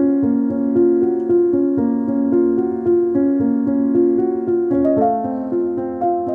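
Background piano music: a gentle melody over held chords, notes struck at an even pace, moving to a new chord about five seconds in.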